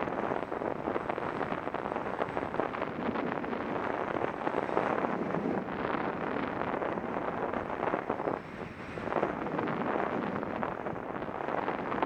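Wind rushing over the microphone of a camera riding on a moving bicycle, an uneven steady noise that swells and dips.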